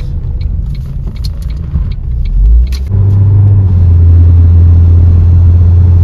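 Road and tyre noise heard from inside a moving car's cabin: a steady low rumble. About halfway through, a strong low drone sets in and stays steady.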